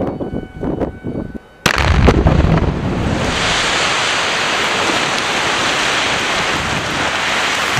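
Quarry bench blast: wind buffeting the microphone, then about a second and a half in a sudden loud explosion, followed by a steady rushing noise as the blasted rock face heaves and collapses in a cloud of dust.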